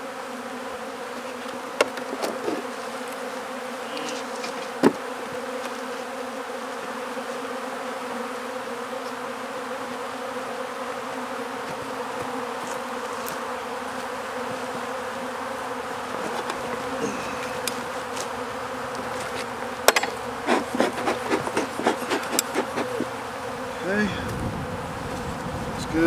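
Honey bees flying around an opened hive, a steady droning hum of many bees. A few sharp clicks early on and a quick run of knocks and taps about twenty seconds in.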